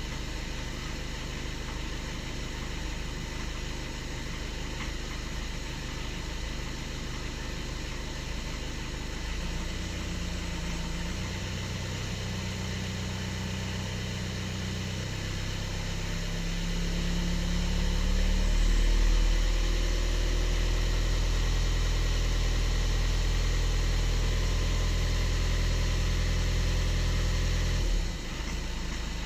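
Skoda Octavia 1.6 TDI four-cylinder diesel engine running cold, the state in which it shows a knock that goes away once warm. It gets louder about halfway through, holds steady, then drops back abruptly near the end.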